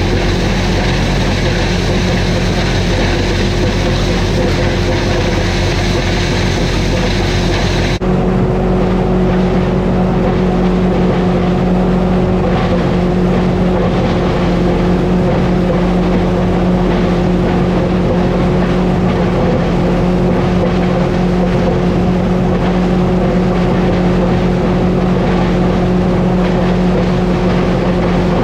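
International 1256 tractor's six-cylinder diesel running steadily under load, driving an Art's Way grinder-mixer grinding ear corn. The sound changes abruptly about eight seconds in, the high whine dropping away and the deeper engine hum coming forward.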